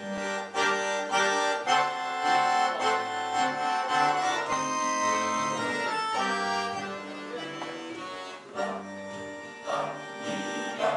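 Accordion playing a melody in a steady rhythm, the instrumental introduction to a song before the choir comes in, with guitar chords underneath.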